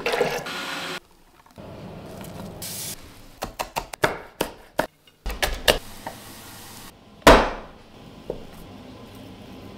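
Water pouring into a plastic blender jug of split peas, then a knife chopping on a wooden cutting board in a quick run of knocks, and one louder knock about seven seconds in.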